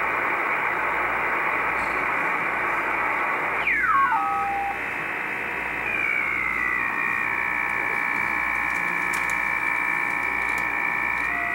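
Shortwave communications receiver in upper sideband hissing with band noise as its dial is turned across the 3.4 MHz range. About four seconds in a whistle falls quickly in pitch, and from about six seconds a whistle steps down and then holds steady: signal carriers heard as whistles while the receiver is tuned past and onto them.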